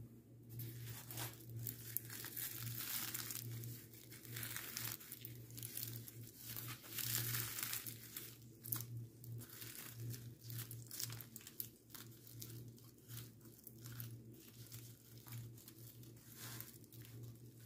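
Hands tearing and pulling apart flaky, layered pan-fried flatbread (sabayad), the crisp browned layers crackling and rustling irregularly as they separate.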